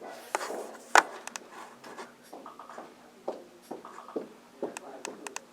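A sharp click about a second in, then scattered light clicks and small knocks of objects being handled.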